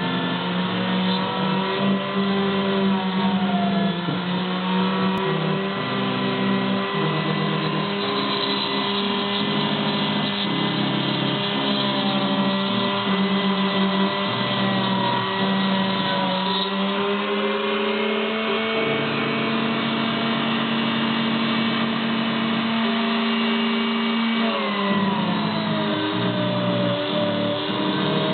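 CNC router's stepper motors whining as the axes move, several pitches at once jumping between levels as each move changes speed, with a couple of slow glides in pitch.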